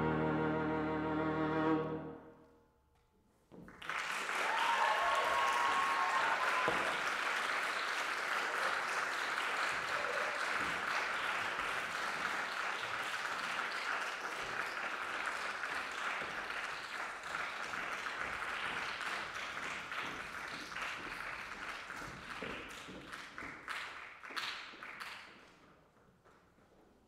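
Viola and piano holding a final chord that cuts off about two seconds in. After a short silence, audience applause starts and runs for about twenty seconds, thinning out near the end.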